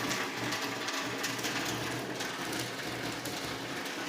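Rain falling steadily, with water running off a roof, a dense patter of drops.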